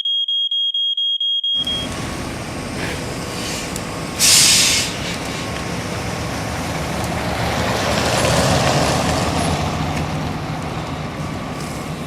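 A smoke alarm beeping rapidly at a high pitch stops about two seconds in. A heavy truck's engine takes over and runs steadily, with a short loud hiss of air brakes about four seconds in.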